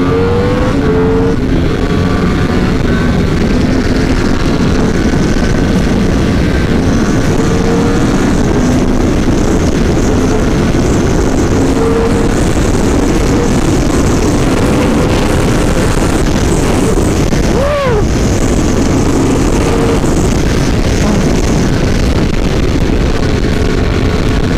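2018 Yamaha R1 sportbike engine running hard at high speed under heavy wind rush on the rider's microphone. The engine note climbs slowly, with one brief break and recovery about 18 seconds in.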